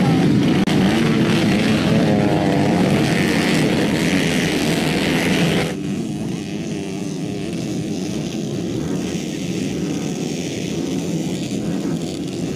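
Racing motorcycle engines revving hard, the pitch rising about two seconds in. About six seconds in the sound cuts abruptly to a quieter, steady noise of several motorcycles running around the dirt track.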